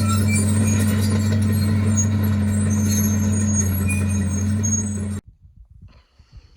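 Heavy earth-moving machine's diesel engine running steadily with a deep, even hum, with a scatter of thin high squeaks over it. It cuts off suddenly about five seconds in.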